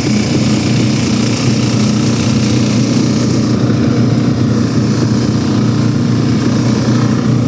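Walk-behind tractor (motoblock) engine running steadily under way, a loud, even drone.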